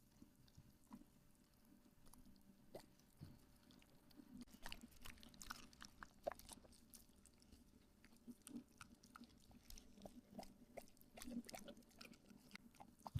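Faint sounds of dogs eating from bowls: wet chewing and many small clicks and crunches, busier from about four seconds in.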